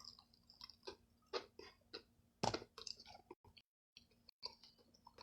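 A person chewing chicken close to the microphone: scattered small wet clicks and crunches, with one sharper crunch about halfway through. The sound cuts out completely for about a second just after.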